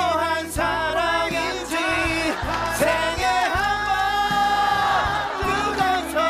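Two male voices singing a ballad chorus line together over keyboard accompaniment, with one long held note in the middle.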